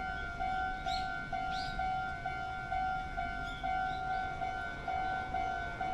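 Japanese railroad crossing warning bell ringing its repeated 'kan-kan' tone, evenly about twice a second, with a few faint short chirps high above it.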